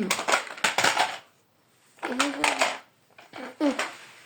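Clattering of small hard objects, a quick run of clicks and knocks, followed by two short pitched vocal sounds.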